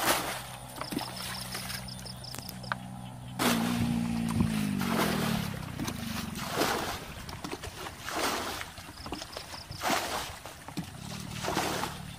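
Muddy water sloshing and splashing as a plastic bucket is dipped and emptied over and over, a splash about every one and a half to two seconds, over a low steady hum.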